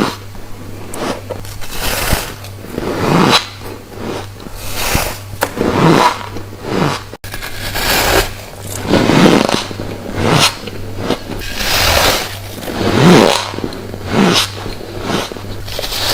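Close-up crunching of refrozen freezer frost being bitten and chewed, a crisp crunch roughly every second. A steady low hum runs underneath.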